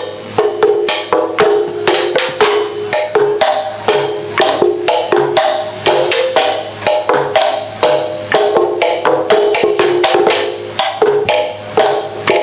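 A found-object percussion ensemble playing music: sharp wooden clacks mixed with short pitched ringing notes in a fast, busy rhythm of several strokes a second.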